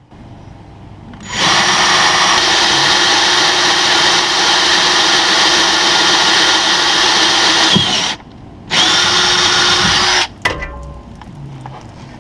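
Power drill boring holes into a sailboat. It runs steadily for about six seconds, stops briefly, then runs again for about a second and a half before cutting off.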